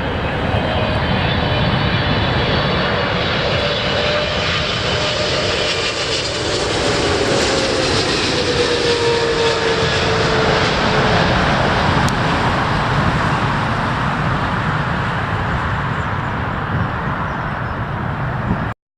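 Boeing 777's twin turbofan engines as the airliner comes in to land: a steady rumble with a whine that slowly falls in pitch as it passes. It cuts off abruptly near the end.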